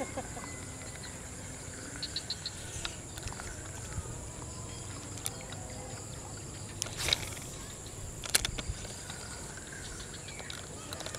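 Steady high insect drone with faint open-air background, broken by a short run of quick high ticks a couple of seconds in and two brief sharp clicks later on, while a spinning rod casts a soft lure over the pond.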